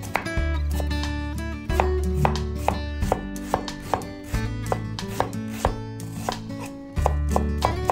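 Chef's knife chopping a peeled onion on a wooden cutting board: repeated sharp strokes of the blade through the onion onto the wood, about two to three a second, over background music.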